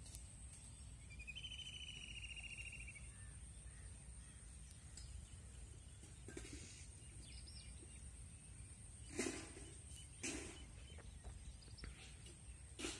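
Faint open-field ambience: a low steady rumble with a thin, steady high-pitched whine over it. A bird gives a short, rapidly trilled call about a second in, and a few soft knocks come near the end.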